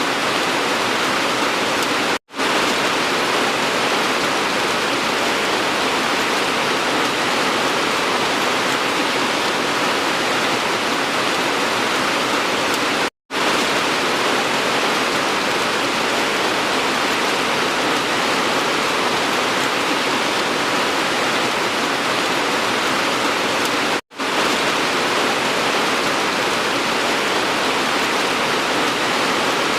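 Steady, dense rain hiss with no individual drops standing out. It cuts out to silence for a split second three times, about eleven seconds apart.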